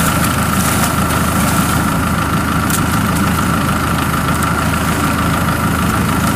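Farm tractor engine idling steadily: a low rumble with a steady high whine over it.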